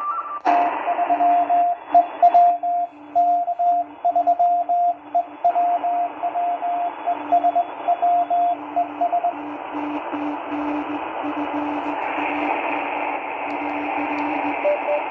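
ATS-20 (SI4732) shortwave receiver in LSB on the 40-metre band: steady static hiss with two beeping tones keyed on and off at once, one higher and one lower. The higher tone stops about nine seconds in and the lower one shortly before the end. The keyed tones are the signal the listener suspects could be interference in the CW portion of the band.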